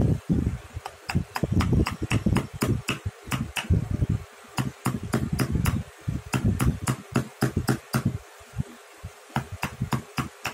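Wood-carving chisel working a wooden carving: an irregular run of sharp clicks, about three or four a second, with a couple of short pauses.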